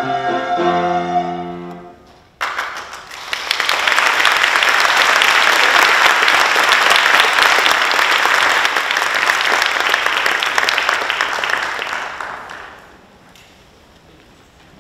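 The last notes of the song end about two seconds in. An audience then breaks into applause, which swells, holds for about eight seconds and dies away.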